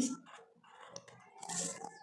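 Felt-tip marker scratching out short strokes on paper, with the paper pattern shifting on the table and a louder paper rustle near the end.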